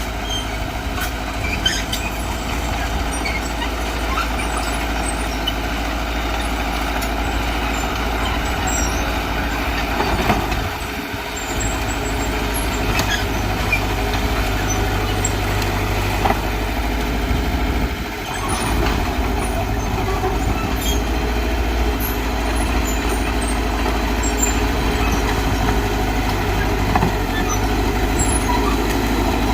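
Mitsubishi BD2G bulldozer's diesel engine running steadily under working load, with two brief dips in the rumble about 11 and 18 seconds in.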